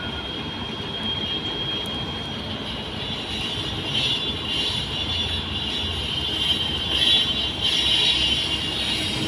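Kobelco SK200 hydraulic excavator's diesel engine running steadily under digging load, with a constant high-pitched whine over its drone. It grows louder from about four seconds in, with repeated higher surges as the hydraulics work the boom and bucket.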